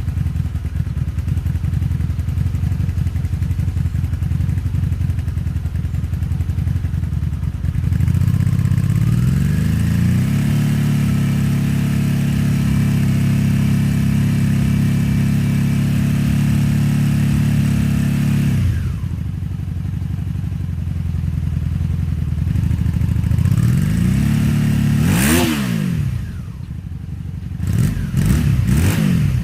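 Honda Magna VF750C V4 motorcycle engine running. It idles, rises to a higher speed and holds there for about eight seconds, drops back to idle, then is blipped twice near the end.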